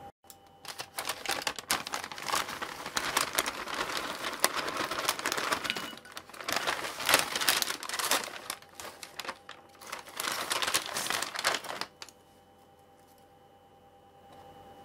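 Plastic snack bag of shrimp crackers crinkling and rustling, with dense crackly clicks, for about eleven seconds. It stops near the end, leaving faint room tone.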